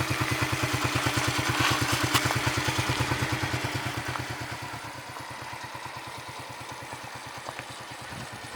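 Yamaha Crux motorcycle's single-cylinder engine idling with an even putter of about nine beats a second, getting quieter after about four seconds.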